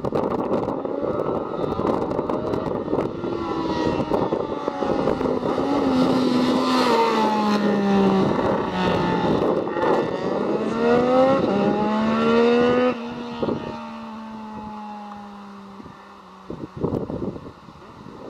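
Sport motorcycle with an aftermarket exhaust accelerating hard toward and past, its engine note climbing and stepping down several times as it shifts up through the gears. About thirteen seconds in, the sound drops off sharply as it passes, and a falling engine tone fades away.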